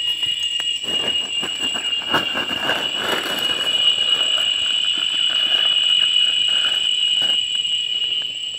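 Cicadas in chorus: a steady, high-pitched drone that swells through the middle, with scattered faint clicks.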